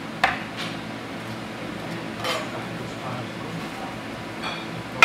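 Cutlery and crockery clinking: a handful of short, sharp clinks of metal against a plate, with the loudest near the end.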